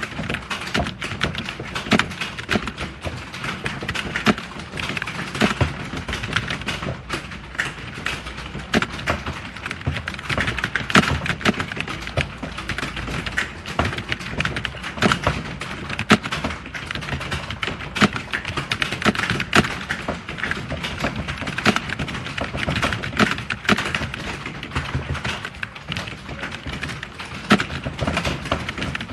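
Fast, continuous typing on a computer keyboard: rapid, uneven key clicks, several a second, throughout.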